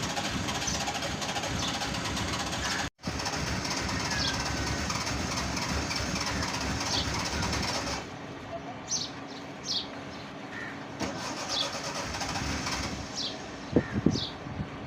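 Suzuki Mehran's engine running steadily. About halfway through, after a cut, it gives way to birds chirping with short, falling calls over a quieter background, with a few thumps near the end.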